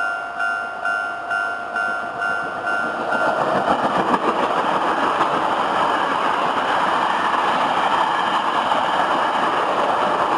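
Japanese level-crossing alarm dinging in a steady two-tone chime about twice a second. About three seconds in, a Hankyu 5300 series resistor-controlled electric train passes, its wheel-on-rail and motor noise drowning out the alarm.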